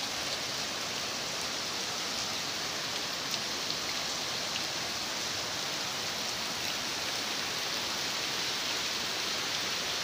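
Waterfall and shallow river rushing over rocks: a steady, even hiss of falling and splashing water.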